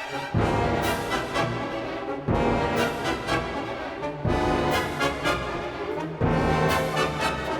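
Orchestral background music with brass, swelling in heavy accented chords about every two seconds.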